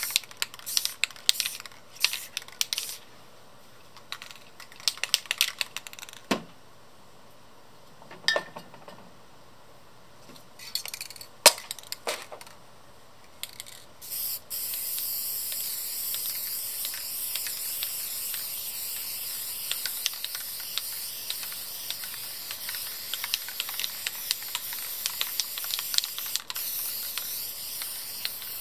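Scattered sharp clicks and a few knocks for the first half, then an aerosol spray-paint can (Rust-Oleum American Accents) hisses steadily from about halfway in to the end, with faint clicks through it.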